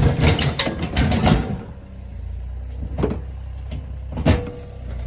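Four-wheeler engine idling steadily, with clattering knocks in the first second and a half and two sharp knocks later.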